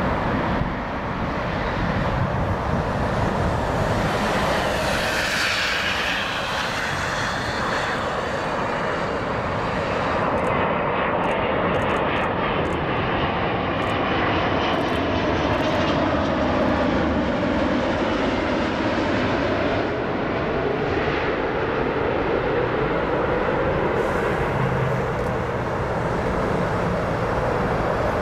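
Airbus A380-800 jet airliner on final approach, flying low: the steady roar of its four turbofan engines, with whining tones that slide down in pitch as it passes.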